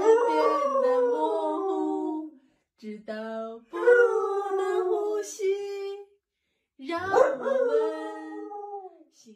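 Husky howling: three long howls, each sliding down in pitch, with short pauses between them.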